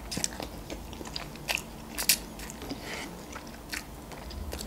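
Close-miked eating of instant noodles: chewing with wet mouth clicks and smacks, and noodles being drawn into the mouth. The clicks are scattered, and the loudest comes about two seconds in.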